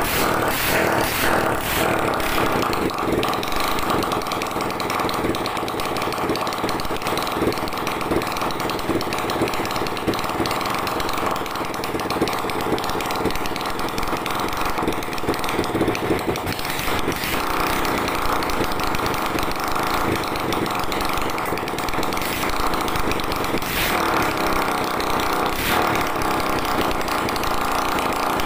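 Lifan 150cc motorcycle engine running on its first start after a full rebuild. It runs continuously, and its note shifts a few times, most clearly about 17 seconds in.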